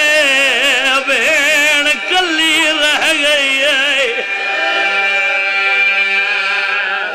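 A man singing a Shia mourning lament (majlis recitation) into a microphone, his voice wavering through ornamented runs, then holding one long note from about four seconds in that fades near the end.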